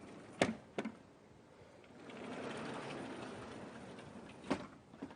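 Writing on a lecture board: a few sharp taps, two early on and one near the end, with faint scratching between them.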